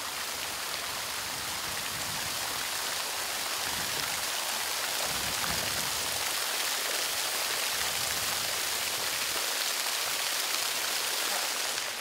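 Sculpture fountain's many water jets spraying and splashing into its pool: a steady hiss of falling water, slightly louder through the middle.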